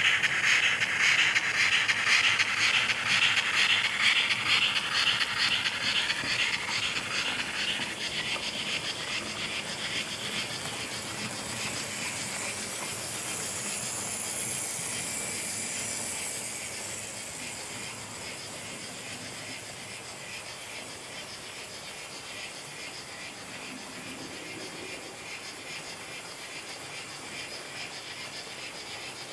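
HO-scale model steam locomotives running on the layout's track: a loud, rapidly pulsing hiss and rattle fades away over the first eight seconds as a train moves off. A fainter high whine follows at about halfway as the streamlined class 10 passes close by, over a steady low running rumble.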